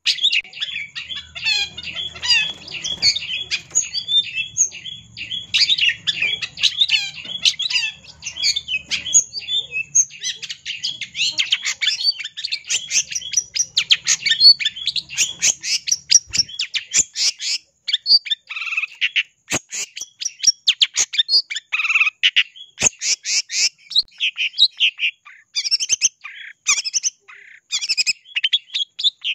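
Long-tailed shrike singing a fast, continuous chatter of short high notes, which becomes more broken up, with gaps between phrases, in the second half.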